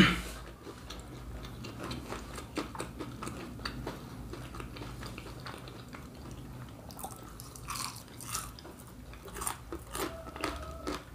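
Close-miked chewing of crispy fried Brazilian pastel. A loud crunchy bite comes right at the start, followed by steady wet chewing with small crackles of the fried crust.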